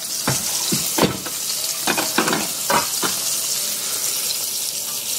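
Hot oil sizzling steadily in a frying pan as food fries, with a handful of sharp pops and crackles breaking through the hiss.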